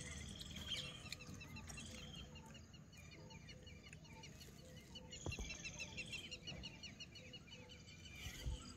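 Faint background birds calling: many short high chirps, with a soft low note repeating about twice a second.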